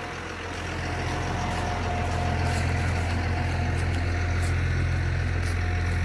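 A 1996 Blue Bird school bus engine idling steadily while it warms up, a deep hum that grows a little louder over the first couple of seconds.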